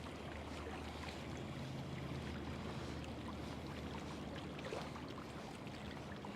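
A steady low engine drone, like a distant motorboat, over running water lapping and gurgling.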